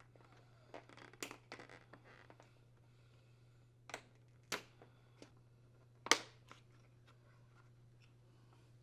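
Scattered plastic clicks and snaps as the retaining tabs of a dishwasher's control panel are released and the panel and handle are handled. The loudest snap comes about six seconds in, over a faint steady hum.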